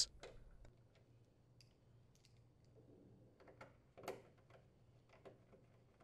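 Faint, scattered clicks of a nut driver turning a mounting screw into the sheet-metal bracket of a refrigerator water inlet valve, the clearest about four seconds in.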